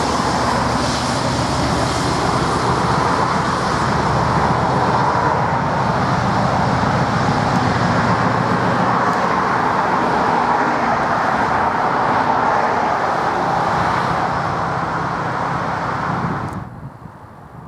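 Class 56 and Class 50 diesel locomotives working in tandem, their V16 diesel engines running loud and steady under power. The sound cuts off suddenly near the end.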